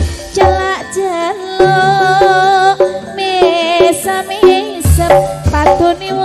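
Live campursari band music during an instrumental break: a wavering, gliding melody line over kendang hand-drum strokes and bass.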